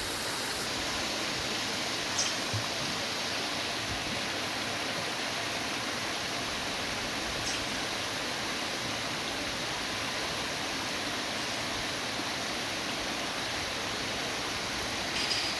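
Steady rush of flowing water, an even hiss that holds without change.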